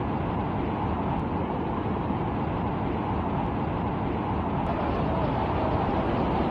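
Steady rushing noise of a vehicle driving through floodwater in heavy rain, heard from inside the cab: engine, tyres churning water and rain blending into one even noise.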